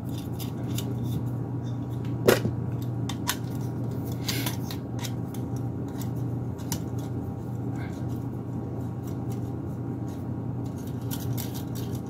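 Light metallic ticks and clicks of a Wi-Fi antenna's threaded connector being screwed onto a PCIe card's metal bracket and the parts being handled, with one sharper click about two seconds in, over a steady low hum.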